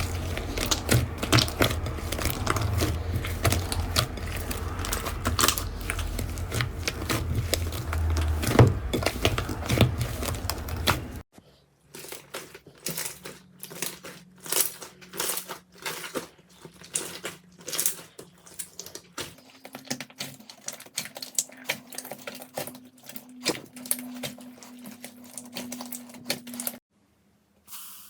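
Slime being pressed and squeezed by hand, giving dense crackling and popping clicks. About eleven seconds in it cuts to a quieter clip with sparser, sharper clicks.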